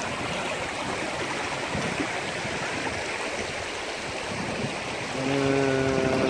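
Shallow rocky stream running over stones, a steady rush of water. About five seconds in, a steady low pitched tone with overtones sounds over it for about a second.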